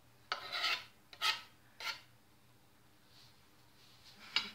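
Knife blade scraping across a wooden cutting board, pushing mashed garlic off into a dish: three short rasping scrapes in the first two seconds, then a couple of faint scrapes near the end.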